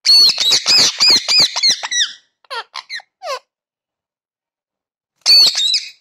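Rose-ringed parakeet screeching in a rapid run of about four loud calls a second, then a few shorter downward-sliding calls, then after a pause another short burst of screeches near the end.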